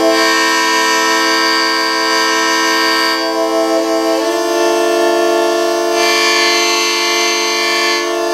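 Hyper-hurdy-gurdy, a hurdy-gurdy augmented with sensors and digital signal processing, played with its wheel cranked. It sounds sustained notes over a steady drone, and the pitch shifts once about four seconds in.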